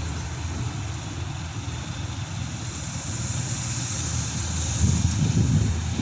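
Combine harvester running as it cuts wheat: a steady engine and machinery drone with a hiss over it, swelling louder with uneven low rumbling near the end.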